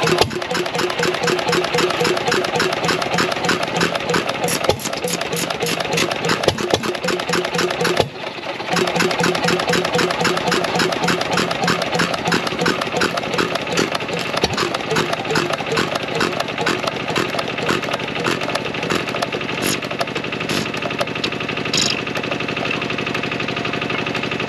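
1946 Cooper TB two-horsepower hit-and-miss stationary engine turning over and running, a steady rapid mechanical clatter, just started after cranking. The sound drops out briefly about eight seconds in, then carries on.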